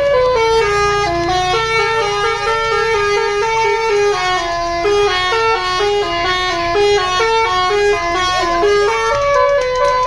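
Basuri telolet horn on a tour bus playing a melody: a fast run of stepped, multi-tone trumpet notes changing pitch several times a second.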